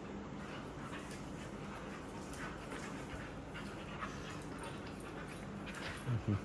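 Two puppies playing together, with small scuffles and ticks throughout and two short, louder, low sounds from the play near the end.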